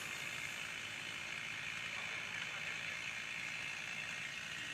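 Chainsaw running steadily, heard faintly, during the felling cut on a large tree.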